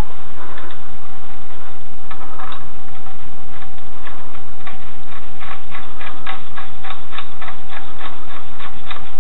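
Steel lug nuts being spun by hand onto the wheel studs of a steel wheel: small metal clicks and thread scraping, coming thick and fast from about four seconds in.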